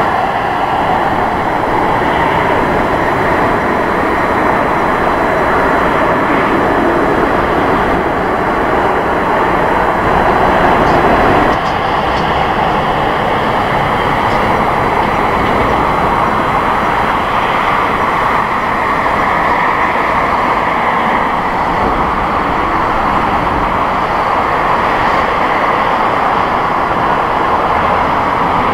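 Boeing 747-400 freighter on final approach, its four jet engines making a steady, loud rushing noise.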